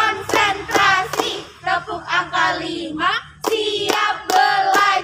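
A group of young women singing a clapping song in unison and clapping their hands in time, with sharp claps between the sung lines.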